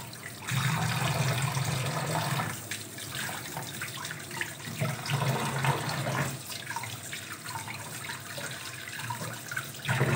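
Tap water pouring into a steel bowl of fish pieces in a stainless steel sink while hands rub and rinse the fish, splashing; the water sound swells and eases in stretches.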